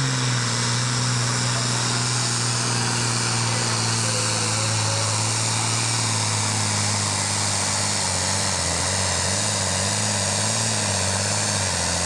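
International Harvester 1566's turbocharged six-cylinder diesel engine running at full throttle under heavy load while pulling a weighted sled. The steady engine note sags slightly at first and wavers up and down from about two-thirds of the way in as the load builds.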